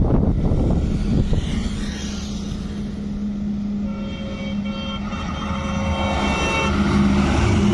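Heavy trucks and traffic passing on a highway, with a diesel engine drone and low rumble throughout. A vehicle horn sounds in several short honks from about four seconds in to near the end.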